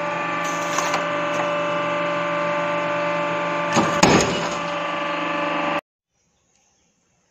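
Hydraulic punching press running with a steady machine hum, with a sharp metallic clunk about four seconds in as the punch and die cut a slot through a steel sheet. The sound cuts off abruptly near the end.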